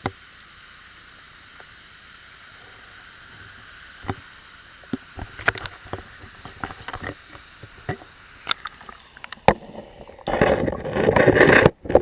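Steady distant rush of a waterfall, overlaid from a few seconds in by scattered clicks and knocks of a handheld action camera being moved. Near the end comes a loud rough rushing noise lasting a little over a second, close on the microphone, which then cuts off.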